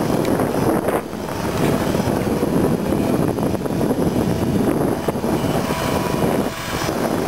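Align T-Rex 250 micro electric RC helicopter hovering, its rotor and motor making a steady buzz that dips briefly about a second in and again near the end.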